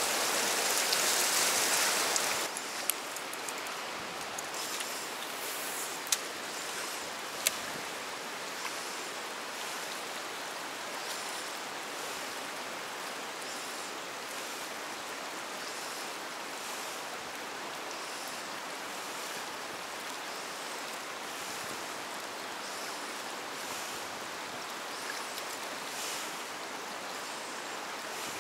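Fast river current rushing over rocks as a steady hiss of white water, louder for the first two seconds or so, then settling to a lower, even rush. A few sharp clicks stand out between about three and eight seconds in.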